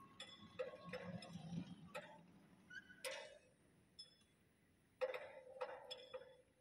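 Faint, scattered clicks and light knocks in small clusters: a run of them in the first two seconds, a single sharper click about three seconds in, and another cluster around five to six seconds in.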